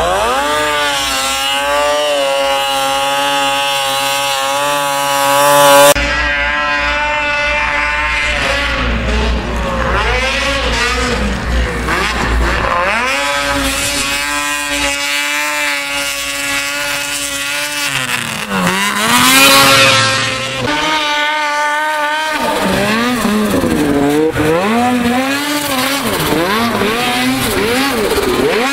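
Snowmobile engines revving hard on a steep snow hillclimb, the pitch rising and falling with the throttle. It is several separate climbs, one after another, and the loudest swells up about twenty seconds in.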